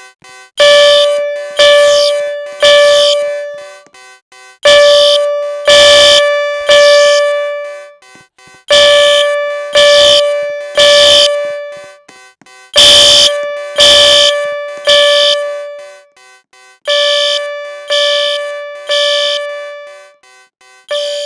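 Fire alarm horn sounding the temporal-3 evacuation pattern: three blasts about a second apart, then a pause, the group repeating every four seconds. Each blast starts sharply and fades.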